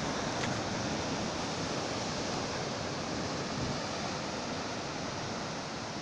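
Heavy sea surf breaking over rocks and churning into whitewater: a steady rush of foaming water with no distinct single crashes.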